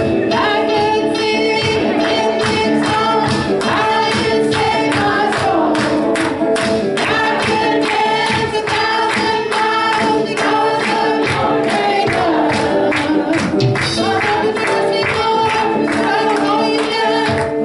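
Live worship music from a church band: voices singing over instruments, with a steady percussive beat.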